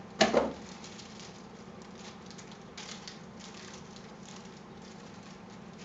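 Small parts being handled: a short louder clatter just after the start, then faint, irregular ticking and rustling, as of a bag of computer-case screws being sorted through.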